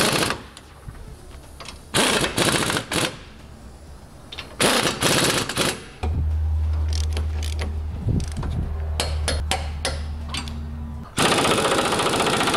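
Base plate mounting bolts being tightened with a socket wrench on a long extension: three short bursts of rapid clicking in the first six seconds. A steady low hum follows, and a longer, louder rattling burst comes near the end.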